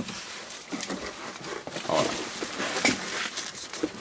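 Cardboard box flaps and bubble wrap rustling and crinkling as hands dig into a box and lift out a bubble-wrapped package, with irregular scrapes and sharper crackles, the loudest about two and three seconds in.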